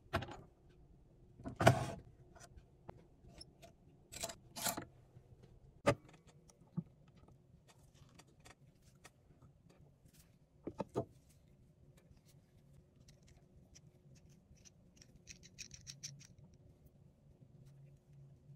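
Scattered knocks and clicks of small metal pen-kit parts being handled and pressed together, the loudest knock about two seconds in, with faint quick clicking later on.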